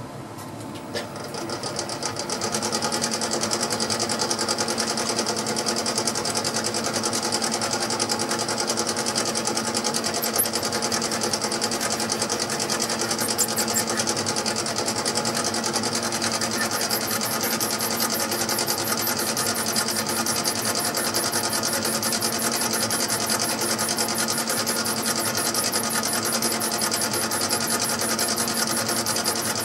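Mini lathe's motor and gear train spin up a little after a second in, then run steadily, with a steady hum and a fine high whir. The lathe is turning a delrin bar with a small nose radius carbide insert.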